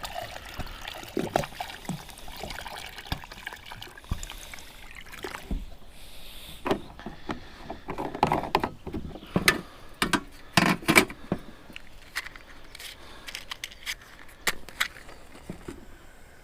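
Water being poured over potatoes in a camping pot, followed by a run of sharp clinks and knocks as the pot is handled.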